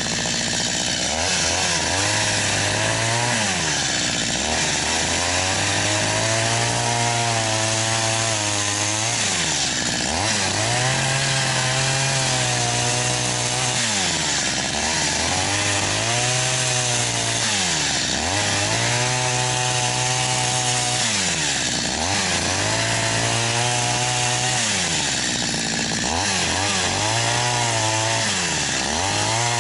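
Chainsaw cutting into a log, its engine pitch rising and falling every two to three seconds as the throttle is opened and eased off through the cuts.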